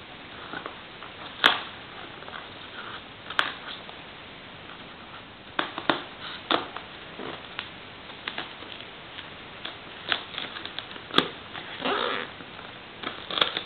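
Hands scratching, rubbing and tapping on a taped cardboard shipping box, with scattered sharp taps and clicks and a short rustle of paper about twelve seconds in.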